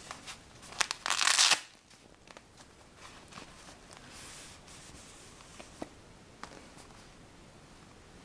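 Handling noise from a DICOTA TabCover fabric tablet case as hands open it and slide a tablet out: one loud noisy burst about a second in, then scattered small clicks and rustles.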